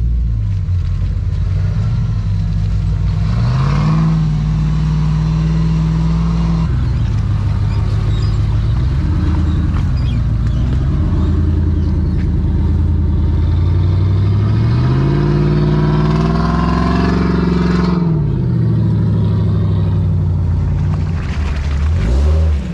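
Off-road 4x4's engine under load, revving up twice: it climbs and holds a few seconds in, drops back, then climbs again past the middle and falls away.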